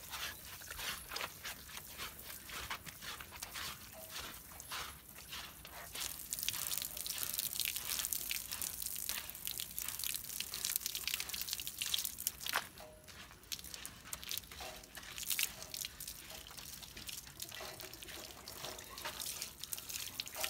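Water splashing and dripping over a Cane Corso's coat during a bath. In the middle there is a louder, steadier stretch of running water lasting several seconds, which cuts off sharply.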